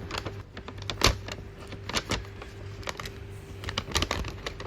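Hands working at a stapled-shut cake box, prying at the staples: irregular sharp clicks and taps, one loud snap about a second in and a cluster of clicks near the end.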